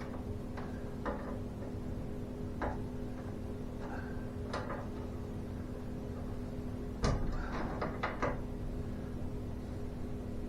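Scattered knocks and clicks of garage door hardware being handled, with a burst of clattering about seven seconds in, over a steady low hum.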